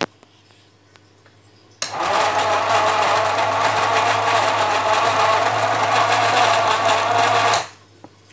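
Newman Sinclair NS400 35mm cine camera running empty, without film: its electric drive and single-claw pull-down mechanism chatter steadily for about six seconds. The run starts abruptly about two seconds in and stops near the end. A single sharp click comes at the very start.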